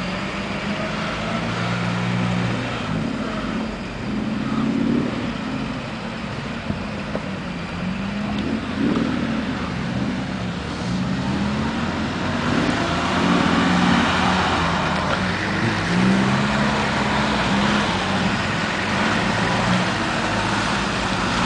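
Land Rover Series long-wheelbase station wagon's engine revving up and down as it crawls over a muddy off-road track, its pitch rising and falling every few seconds. It grows louder and noisier over the second half as the vehicle comes close.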